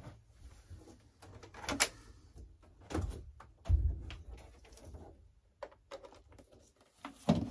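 Handling sounds as an FMS A-10 model jet is moved and set back in place: scattered light knocks and clicks, with sharper knocks a little under two seconds in, around three and four seconds in, and near the end.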